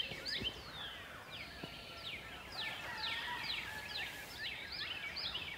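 Several birds calling over one another: many quick chirps that slide downward in pitch, overlapping and repeating, over a faint outdoor hiss.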